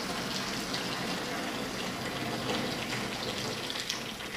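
Hot water pouring steadily from an electric kettle into a 20-ounce bottle, tailing off near the end as the pour stops.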